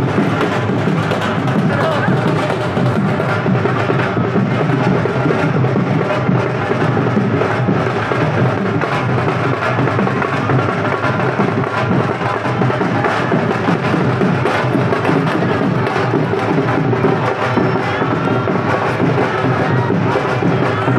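Loud music with heavy percussion, beats going on without a break.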